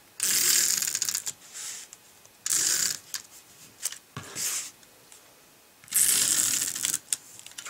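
Glue tape runner laying a strip of adhesive along the edge of a paper card, in about five short scratchy strokes with pauses between.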